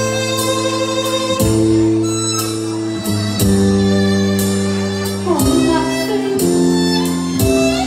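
Cải lương accompaniment music: held instrumental chords punctuated by sharp percussion strikes about once a second, with a sliding bend in pitch a little past halfway.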